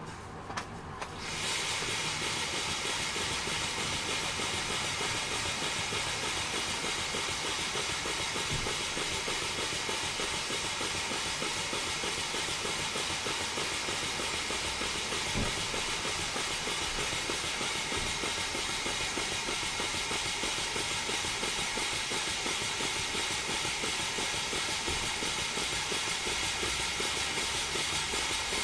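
Stuart Turner 7A model steam engine running on compressed air at about 0.2–0.3 bar, with an oil mist in the air feed. It starts about a second in and then runs steadily, with rapid, even exhaust beats over a constant hiss of escaping air.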